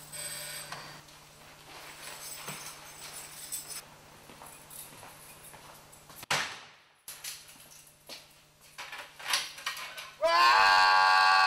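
Light clicks and metallic rattles from a bank of metal apartment mailboxes, then near the end a loud, steady squeak about a second long as a mailbox door is swung open.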